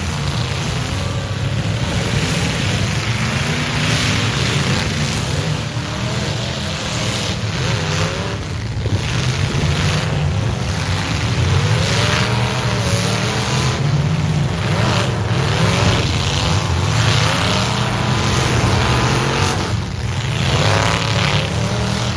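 Several demolition derby trucks' engines running loud and revving up and down together, their pitches rising and falling and overlapping.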